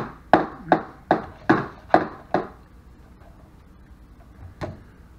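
A baby banging a plastic cup on a high chair's plastic tray: seven sharp knocks at about two and a half a second, stopping about two and a half seconds in. A single sharp tap near the end.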